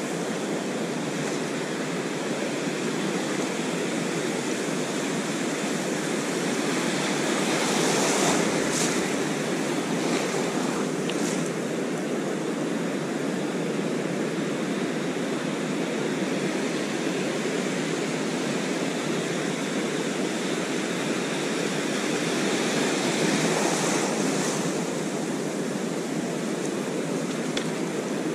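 Ocean surf washing in steadily, with waves breaking and rushing up louder about eight seconds in and again around twenty-four seconds.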